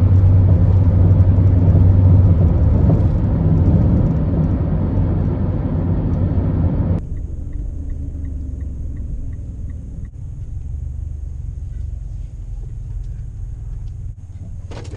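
Cabin noise inside a Mitsubishi SUV: loud, steady road and engine noise at highway speed, which cuts off abruptly about halfway through to a quieter, low rumble of slow driving. A light, even ticking about twice a second runs for a few seconds after the change.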